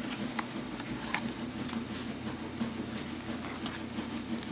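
Cardstock pages and tucked cards of a handmade journal rustling and sliding as they are handled, with a few faint soft clicks over a steady low hum.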